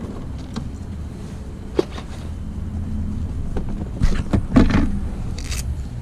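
Vespa Sprint scooter idling with a steady low hum. Over it come a few knocks and clunks as the seat is unlatched and raised, the loudest a cluster about four to five seconds in, then a brief rustle.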